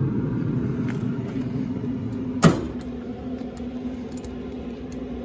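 Pellet grill lid shut with a single sharp metal clank about two and a half seconds in, over a steady low hum.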